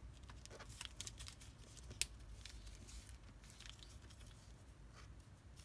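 Faint rustling and crinkling of origami paper being folded by hand into zigzag pleats, with a sharper crackle about two seconds in.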